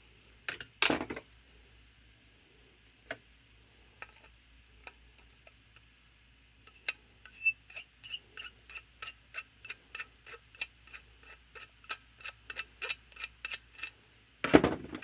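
Light metallic clicking of hand tools on a Carter Thermoquad carburetor while a seat is worked out of it: a few sharp clicks about a second in, then a steady run of small ticks, about two or three a second, through the second half, and a louder clatter of metal parts near the end.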